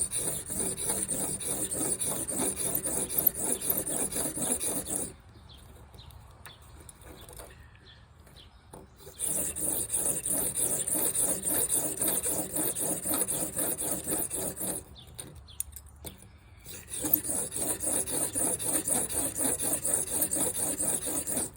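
Broadhead blade in a Blade Sled sharpening jig being stroked back and forth over 400-grit sandpaper, steel scraping on abrasive. There are three runs of quick, rhythmic strokes with short pauses between them.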